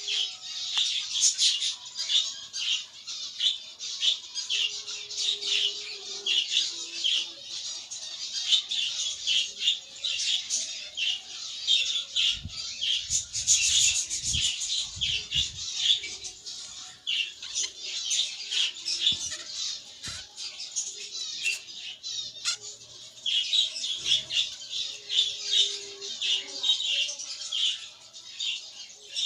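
Budgerigars chattering and squawking without pause in a dense, high-pitched twitter, with a few soft low thuds about halfway through.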